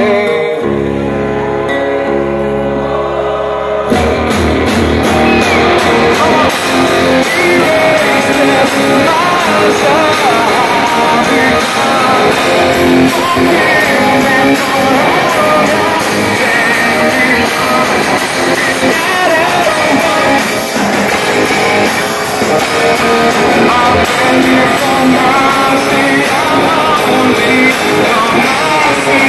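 A rock band playing live through a club PA, with acoustic guitar, drums and singing. A chord is held for about the first four seconds, then the full band comes in.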